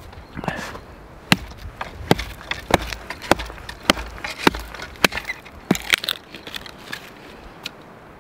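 Hatchet chopping into a thin trunk of dead standing spruce: about nine sharp blows at a steady rate of a little under two a second, which stop about six seconds in.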